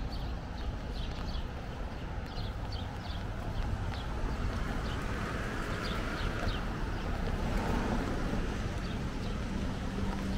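Footsteps on a wet sidewalk, light clicks about twice a second, over a steady low rumble of wind and traffic. The hiss of car tyres on the wet road swells from about four to eight seconds in.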